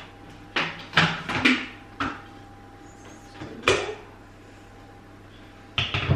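Plastic lid of a Krups Prep&Cook multicooker knocking and clicking as it is turned free and lifted off the bowl: a quick run of four knocks in the first two seconds, another about halfway through, and one more near the end.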